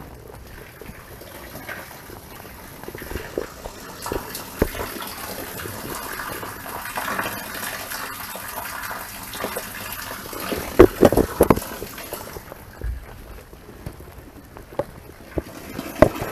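Rainwater gushing and running through a backyard drainage system in a steady rush. A cluster of sharp knocks comes about eleven seconds in.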